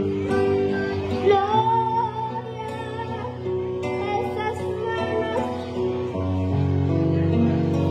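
A young boy singing into a microphone over strummed acoustic guitar accompaniment.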